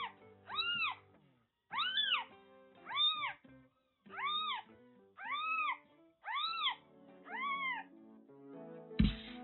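Newborn calico kitten mewing: about eight high calls, each rising and falling in pitch, roughly one a second, over soft background music. A short thump comes near the end.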